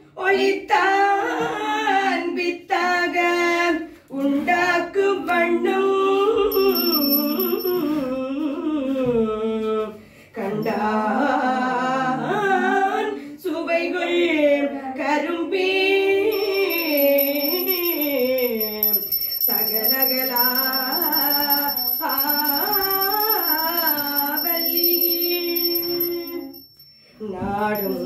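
A woman singing a Hindu devotional song unaccompanied, one wavering melodic line with short pauses between phrases.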